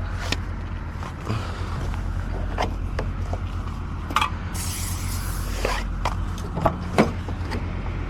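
A vehicle engine idling steadily under scattered sharp clicks and knocks from lockout tools and the car door being worked. A brief hiss comes about four and a half seconds in.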